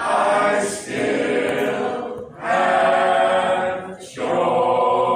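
Choir singing a gospel song in held phrases, with short breaks between phrases about a second, two seconds and four seconds in.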